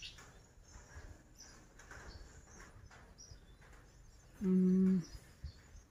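Faint outdoor background with scattered bird chirps. About four and a half seconds in, a loud, steady, low tone is held for about half a second and stops abruptly.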